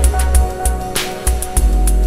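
Background music with a steady beat, held chords and a heavy bass that drops out briefly a little over a second in.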